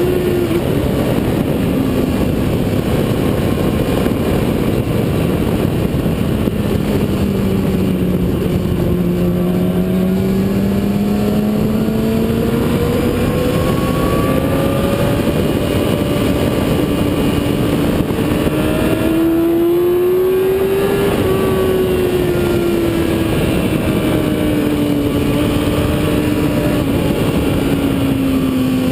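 Motorcycle engine heard from an onboard camera while lapping a track: its pitch sinks over the first several seconds, climbs slowly to a peak about two-thirds of the way through, then falls again. A loud, steady rushing noise runs under it.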